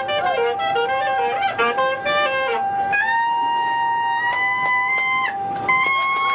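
Saxophone playing a melody over djembe: a quick run of short notes, then long held notes stepping upward, with a few hand-drum strokes in the second half.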